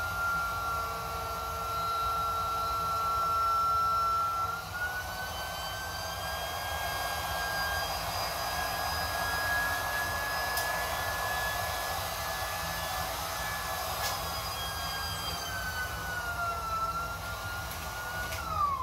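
A small portable electric air pump running steadily as it inflates an inflatable kayak's air chamber, its whine shifting in pitch a couple of times. Near the end the whine drops quickly in pitch as the pump winds down.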